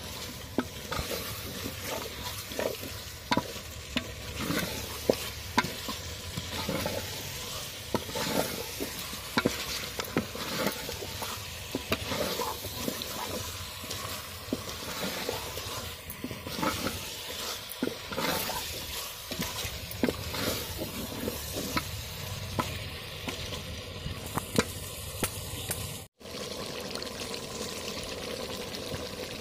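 Wooden spatula stirring and scraping chunks of meat in a large aluminium pot, irregular scrapes and knocks over a steady sizzle as the meat fries down in oil and spices (kosha stage). The sound cuts out for an instant near the end, then a steadier hiss follows.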